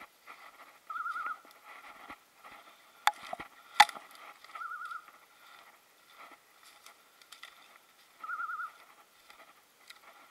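A setter's beeper collar (Beretti 2000xp) sounding a short warbling beep about every three and a half seconds, three times, the slow interval of run mode that signals the dog is still moving and not on point. Between beeps, brush and dry leaves crackle underfoot, with two sharp twig cracks about 3 and 4 seconds in.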